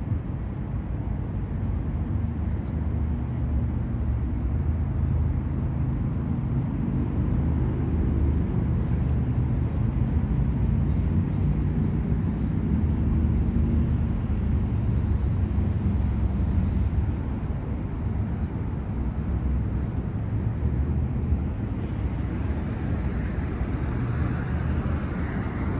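Steady low rumble of city traffic, a little louder through the middle stretch.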